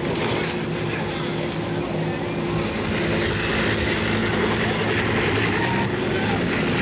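Bell UH-1 Huey helicopter's turbine and rotor running steadily as it hovers low over the sea, with a steady hum, growing a little louder about halfway through.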